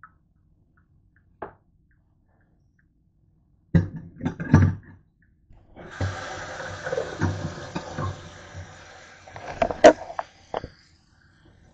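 A few clattering knocks, then a kitchen tap running into a stainless steel sink for about three and a half seconds. Two sharp knocks come near the end.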